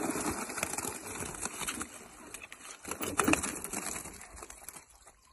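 Water splashing and streaming off a mesh fishing keepnet as it is hauled up out of a pond, loudest about three seconds in and dying away near the end.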